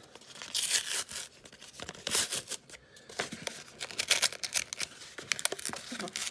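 Outer wrapper of a Topps baseball two-pack being torn open by hand: several short rips with crinkling and crackling of the wrapper between them.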